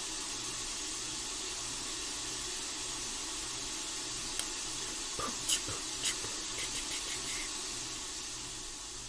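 Steady hiss with a faint low hum, easing off near the end. About four to seven seconds in come a handful of short, light clicks and taps, two of them louder, fitting fingertips tapping a smartphone screen.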